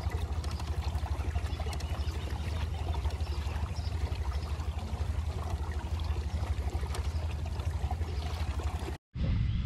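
Water trickling and swishing along a kayak's hull, over a steady low rumble. The sound cuts out briefly near the end.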